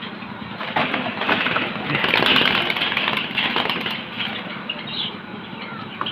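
Pigeons flapping their wings in a wire cage while being caught by hand, with the cage wire rattling: an irregular rustling with many small clicks and knocks, loudest about two to three seconds in.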